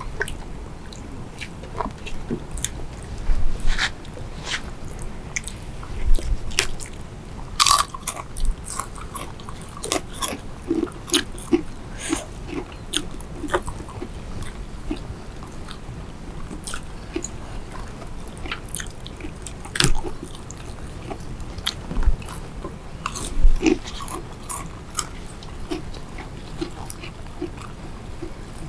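Close-up eating sounds: people chewing and biting crisp fried food, with irregular crunches and mouth clicks, and a few sharper, louder bites now and then.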